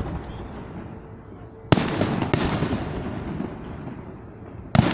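Aerial fireworks shells bursting overhead: a sharp bang about two seconds in, another half a second later, and a third near the end, each trailing off in a long fading rumble.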